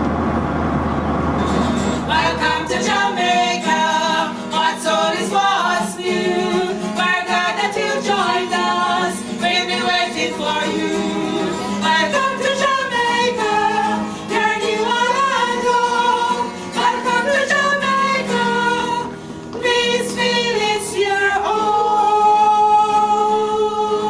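Steady airliner cabin drone for about the first two seconds. Then a group of women singing together, accompanied by an acoustic guitar, with a long held note near the end.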